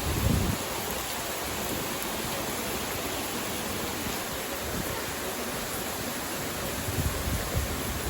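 Steady rushing water: rain together with a stream and small waterfall, an even hiss spread across all pitches. Brief low rumbles come right at the start and again near the end.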